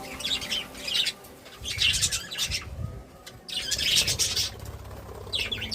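Budgerigars chirping and chattering in several short bursts, with low rumbling thuds under some of them.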